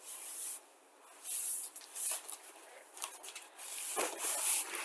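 Cardboard shipping box being handled and turned over: several short rubbing and scraping sounds, the longest near the end.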